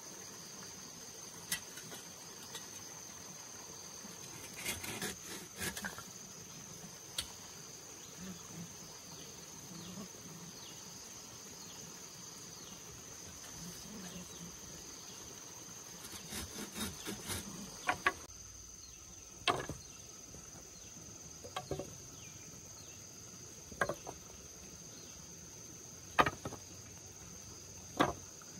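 Steady high chirring of insects, with scattered sharp wooden knocks and clacks from bamboo poles being handled, sawn and set down. The knocks come singly every few seconds, with a quick run of them about two-thirds of the way through.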